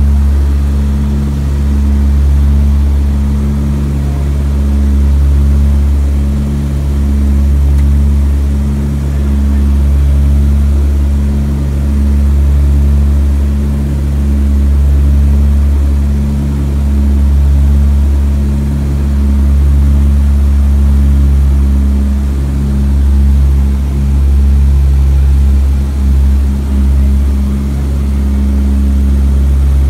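Twin Wright R-1820 nine-cylinder radial engines and propellers of a Grumman Albatross droning loudly and steadily in flight, heard from inside the cockpit, with a slow rise and fall in loudness about every two seconds.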